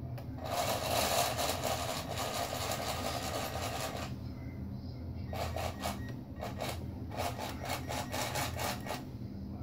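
Small electric drive motors and propellers of a radio-control model destroyer running in reverse in a bathtub, with a steady low hum. A rush of churning noise fills the first few seconds, and a run of sharp clicks follows in the second half.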